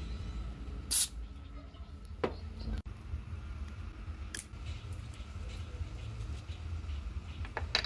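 A few sharp clicks of small metal parts and pliers knocking together as a spring-loaded valve assembly is handled, the loudest about a second in, over a steady low rumble.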